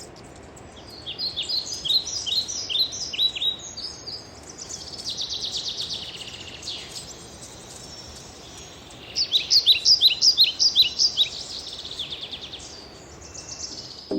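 Birds singing: runs of short, high, down-slurred chirps repeated several times a second, with a fast buzzy trill in between, over a steady background hiss.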